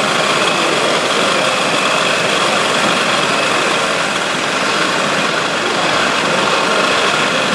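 Radio-controlled model construction machines running, Liebherr wheel loaders and a model trommel screen, giving a steady, unbroken mechanical running noise.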